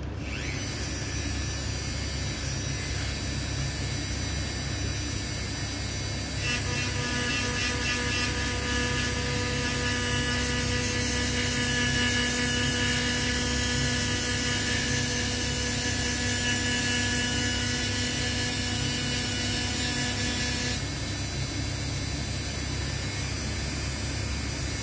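A small electric motor running steadily with a high hiss; from about six seconds in a whine of several steady pitches joins it and is louder, dropping away near twenty seconds.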